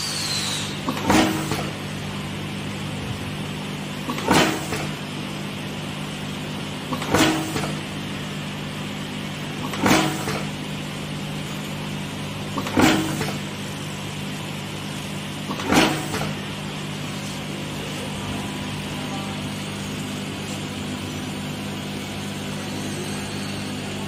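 Connector pin crimping machine with a vibratory feeding bowl: a steady hum underneath, and a sharp crimp stroke about every three seconds, six in all, as wires are fed in one at a time. After about 16 seconds the strokes stop and only the hum continues.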